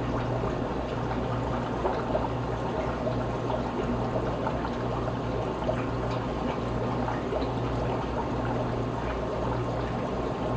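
Water in a small aquarium bubbling and splashing steadily from the aeration, with a low hum underneath.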